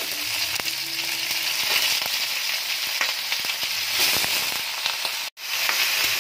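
Raw chicken pieces sizzling in hot oil in a steel wok with onion, ginger and lemongrass, a steady frying hiss. The sound cuts out for an instant about five seconds in.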